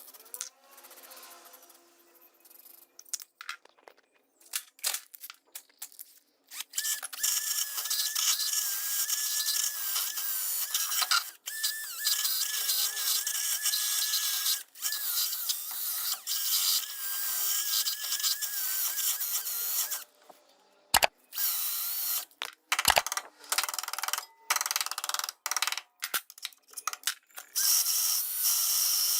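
Electric drill spinning a wire brush against the rusted sheet metal of a car's inner fender, scrubbing the rust off. It starts with a few short bursts, runs steadily with a high whine from about seven seconds in, stops briefly around twenty seconds, then goes on in stop-start runs.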